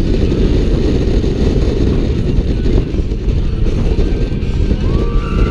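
Wind rushing over a rider-held camera's microphone, with the low rumble of a California Screamin' steel roller coaster train running along its track at speed. A rider's voice rises into a shout near the end.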